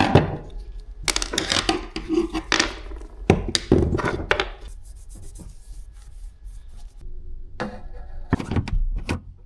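Scattered clicks and knocks with some rubbing between them, loudest in the first half and again near the end.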